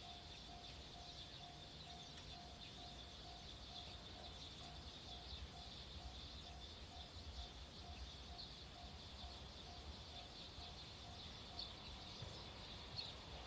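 Distant level-crossing warning bell dinging evenly, about twice a second, as a train approaches, over a steady high chirping and a low rumble.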